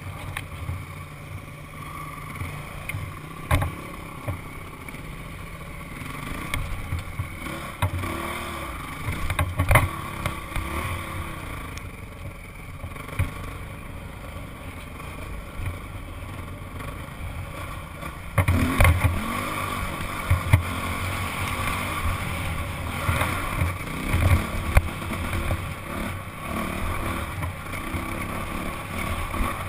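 Single-cylinder four-stroke Honda CRF dirt bike running as it is ridden over slickrock, heard through a helmet-mounted camera microphone with wind noise. There are a few sharp knocks, and it gets louder about two-thirds of the way in.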